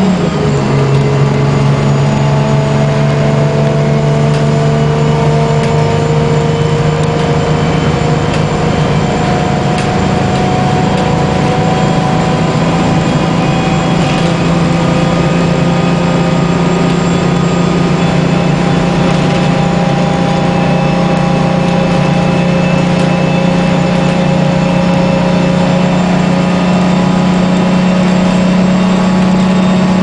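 1994 New Flyer D40 bus's Detroit Diesel 6V92TA two-stroke V6 diesel under way, heard from inside the passenger cabin. Right at the start its note drops suddenly as the Allison automatic transmission shifts up, then it climbs slowly and steadily as the bus gathers speed.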